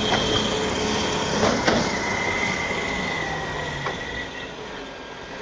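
Crawler bulldozer straining under load, stuck in a slushy pit and being cable-towed out: a steady noisy mechanical rumble with high metallic track squeals, one held for a couple of seconds from about two seconds in. A sharp clank sounds about a second and a half in, and the noise eases off near the end.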